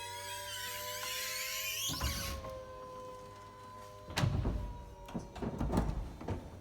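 BMW 4 Series (F33) convertible's folding hardtop in motion, with the roof mechanism whining steadily. Over the first two seconds the roof gives rising high-pitched squeaks, the squeak that is its fault. A knock follows at about two seconds, then a run of loud clunks and creaks from about four seconds in.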